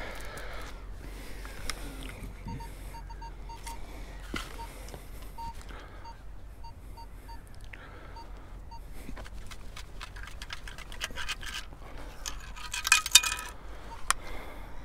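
Minelab Vanquish 540 metal detector sounding a run of short, same-pitched target beeps as the coil sweeps the sand. Near the end, a perforated metal sand scoop is shaken out and rattles and clinks loudly.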